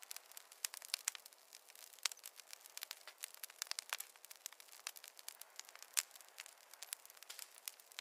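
Wood campfire crackling, with irregular sharp snaps and pops several times a second over a faint hiss; one of the loudest pops comes about six seconds in.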